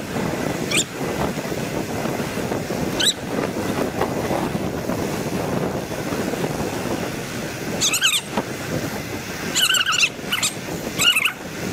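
Wind rushing over an action camera's microphone and tyre noise as an electric bike rides fast on a paved trail. Short high chirps break in a few times, about a second in, around three seconds, and in a cluster over the last four seconds.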